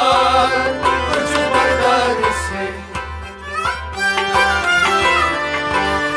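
Kashmiri Sufi devotional music: a melodic instrumental passage over hand-drum strokes, with gliding melody lines. It drops briefly quieter about three seconds in, then picks up again.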